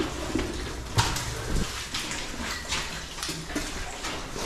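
Boots splashing and squelching through water on a wet mine-tunnel floor, irregular steps roughly every half second, over a steady low rumble.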